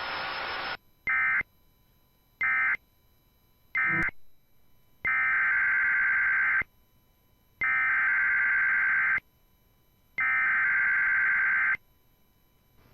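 Emergency Alert System digital data bursts over weather radio: three short buzzy bursts about a second and a half apart, the end-of-message code closing the warning, then three longer bursts of about a second and a half each, the header code that opens the next broadcast of the severe thunderstorm warning. Radio hiss is heard for the first second or so.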